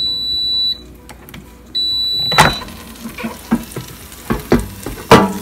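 Power AirFryer XL beeping twice, two long high-pitched tones, as its cooking cycle ends. Then a loud clunk as the basket is pulled out, and country-style pork ribs sizzling in the hot basket, with a few clicks and a second loud knock near the end.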